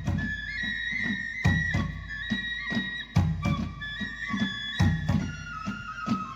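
Background music: a flute-like melody of held notes over a steady drum beat.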